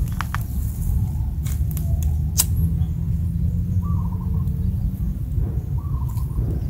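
Wind rumbling on the microphone, with a handheld lighter clicking sharply several times in the first couple of seconds. A bird gives a short chirping call a couple of times in the second half.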